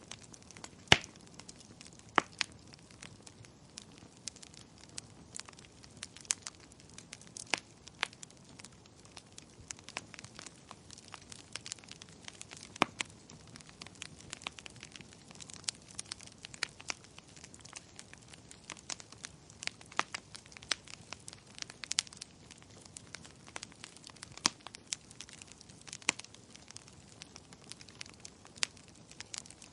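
Wood fire burning in a fireplace, crackling steadily with many sharp pops and snaps over a faint hiss; the loudest pop comes about a second in.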